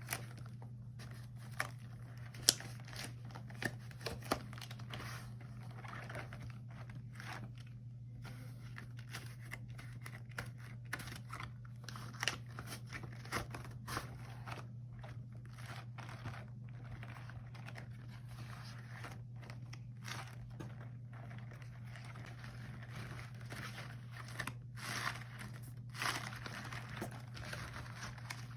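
Rubber gloves handled close to the microphone: irregular crinkling and crackling with scattered sharp clicks, the sharpest about two and a half seconds in and a busier patch near the end, over a steady low hum.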